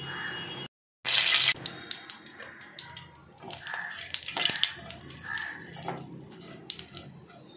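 Chopped onions going into hot oil in a pan: a loud hiss about a second in, then steady sizzling with many small crackles and pops.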